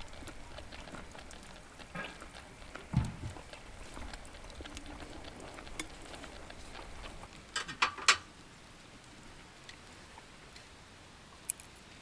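Light clicks and knocks of tableware and utensils being handled on a camp table. There is a dull thump about three seconds in, and a quick cluster of sharp clacks, the loudest sounds, about eight seconds in.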